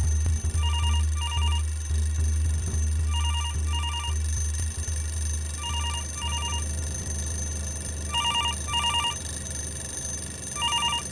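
Telephone ringing with a warbling electronic double ring, ring-ring, repeated five times about two and a half seconds apart, over a low steady hum.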